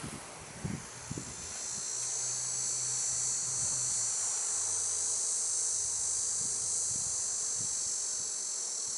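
Honeybees buzzing around an opened hive, with a steady high-pitched insect trill that swells in about a second and a half in and holds.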